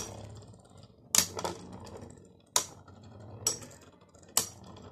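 A Beyblade Burst top and a metal Beyblade Zero-G top spinning in a plastic stadium and clacking as they hit, about six sharp clacks roughly a second apart.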